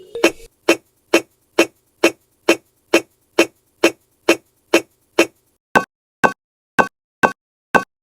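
Background music: a sparse beat of short, clicky plucked notes, about two a second, changing to a brighter note after a brief gap a little before six seconds in.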